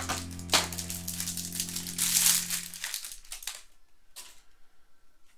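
Clear plastic wrapper of a pack of baseball trading cards crinkling as it is handled and the cards are slid out. The crinkling is loudest about two seconds in and dies away after about three seconds, leaving a few soft rustles.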